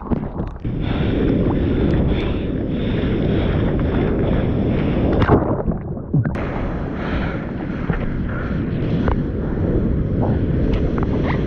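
Crashing shore-break surf and churning whitewater picked up by a GoPro microphone at water level: a loud, steady rush with a few sharp splashes. About five and a half seconds in it goes dull and muffled for under a second as the camera goes underwater, then the open surf noise comes back.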